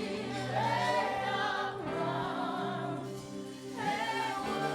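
Congregation and choir singing a slow worship song together, voices holding long notes over a soft, steady instrumental accompaniment.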